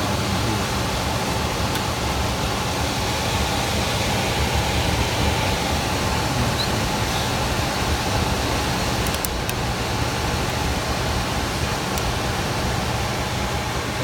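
Trane gas furnace blower running steadily: a constant rush of air with a low motor hum, and a few faint clicks about nine and twelve seconds in.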